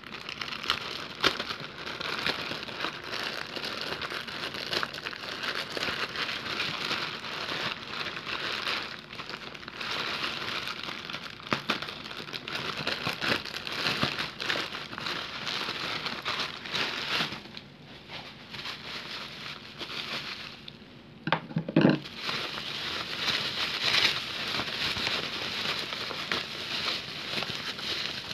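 Plastic mailer bag crinkling and rustling as it is cut with scissors and pulled open, with scattered small snips and crackles; bubble wrap is handled near the end.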